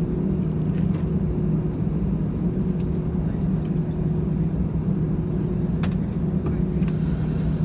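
Steady low rumble and hum of a jet airliner heard from inside the passenger cabin, with a few faint clicks.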